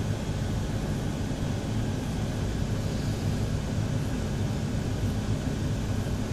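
Steady low rumble and hiss of room background noise, even throughout, with no distinct events.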